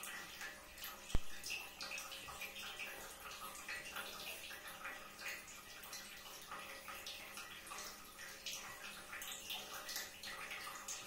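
A pug and a cat scuffling as they play-fight on wooden floorboards: a stream of quick, scratchy rustles, with one sharp knock about a second in.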